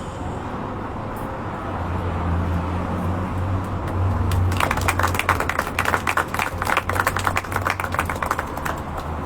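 A small audience clapping for about four seconds, starting about halfway in, over a low steady hum.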